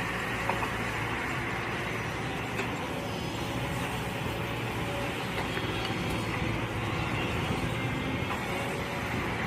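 Mini excavator engine running steadily while digging, with a couple of faint knocks.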